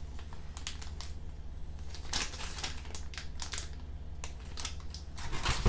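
Clear plastic bag around a plastic model kit's parts sprue crinkling as hands handle and turn it, in scattered short crinkles.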